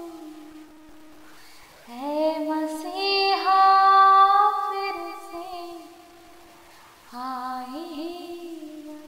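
A woman singing slow melodic phrases, holding long notes with gliding ornaments. One phrase begins about two seconds in and another about seven seconds in.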